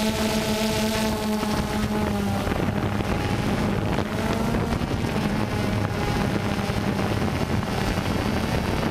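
DJI Phantom 2 quadcopter's motors and propellers running in flight, heard from the camera mounted on the drone: a steady buzzing hum mixed with wind rush on the microphone. Its higher tones fade about two seconds in while the low hum carries on.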